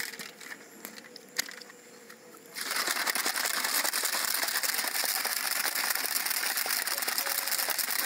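Plastic shaker bottle with water and amino drink powder: a few light clicks as the lid is pressed shut, then about two and a half seconds in it is shaken hard, the liquid sloshing and rattling inside at a steady level as the powder dissolves.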